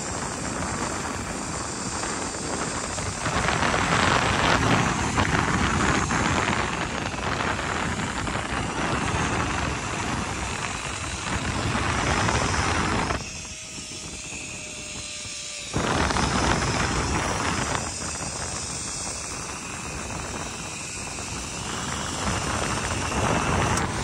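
Wind rushing over the microphone on a fast zipline ride, mixed with the run of the trolley's pulleys along the steel cable. The noise drops off sharply for a couple of seconds a little past halfway, then comes back.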